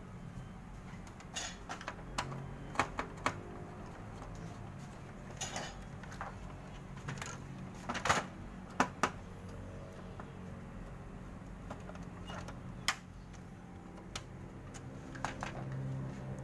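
Irregular metallic clicks and taps of a screwdriver working on screws and parts inside a Canon iR-series photocopier, the sharpest knocks about eight and thirteen seconds in, over a low steady hum.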